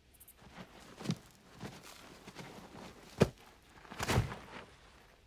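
Thuds and scuffling in sand as a lioness wrestles a gemsbok (oryx) to the ground. The loudest is a single sharp thud about three seconds in, followed by a cluster of heavier thuds.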